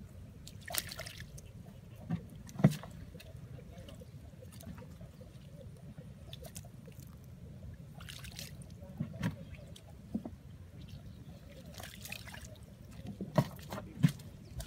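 Scattered splashes and slaps of fish flopping in a shallow muddy puddle as hands grab at them, over a low steady rumble. A few sharper knocks near the end come as the hollow plastic jerrycan is handled.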